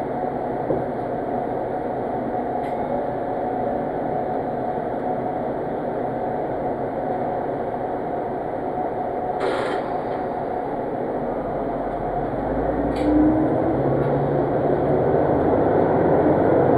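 Diesel railcar heard from inside the cabin, its engine idling steadily while the train stands at a station. A short hiss comes a little past halfway, then the engine revs up and the rumble grows louder as the train pulls away.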